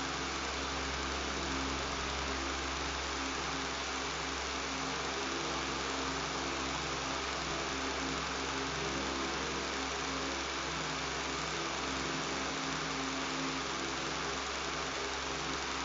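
Electric fan running steadily: a constant buzzing hiss with a low motor hum underneath, unchanging throughout.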